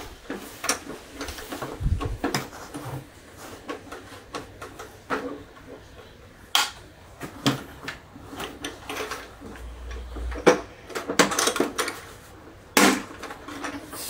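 Hard plastic parts of an Aiper Seagull SE cordless pool robot clicking and knocking as it is reassembled: scattered taps and clacks, with a few sharper snaps in the second half.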